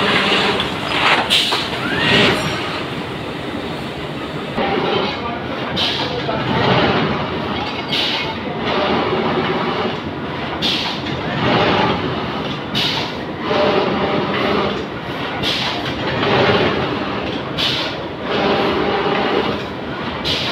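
Textile printing and fabric-handling machinery running: a steady mechanical clatter with a knock or clank every one to two seconds.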